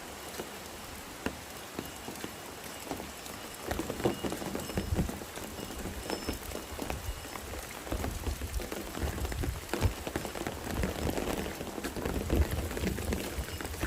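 Steady rain falling, with many close drops tapping and, from about four seconds in, intermittent low thumps.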